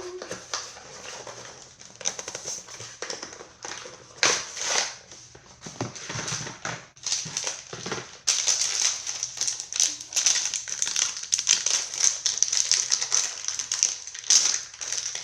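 Irregular rustling and crinkling of packaging as a new laptop hard drive is unboxed, growing busier and more continuous from about eight seconds in.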